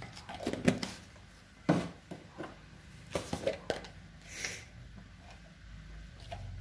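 A few light knocks and clatters of kitchen containers and utensils being handled, with a brief hiss about four and a half seconds in.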